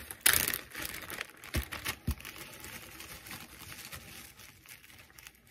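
Clear zip-seal plastic bag crinkling as it is handled and opened, with a loud crinkle burst about a third of a second in, then softer rustles and two soft thumps that die away.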